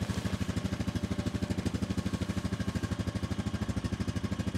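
ATV engine idling steadily, with an even low pulse of about a dozen beats a second.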